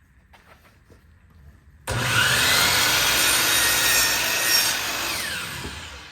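Power saw cutting a pine fence picket board: it cuts in suddenly about two seconds in, holds steady for about three seconds, then winds down with a falling whine.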